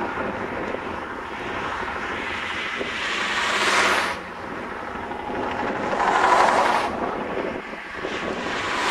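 Two vehicles passing on the highway, each a swelling whoosh of tyre and wind noise that rises and falls away, the first peaking about four seconds in and the second between six and seven seconds, over steady wind noise on the microphone.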